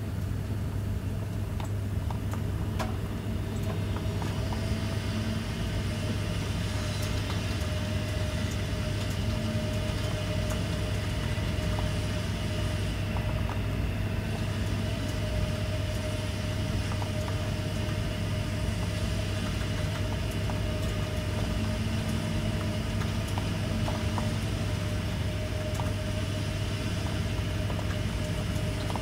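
Steady low hum and rumble of city office background noise, with a constant faint tone above it, an even hiss and a few faint scattered ticks.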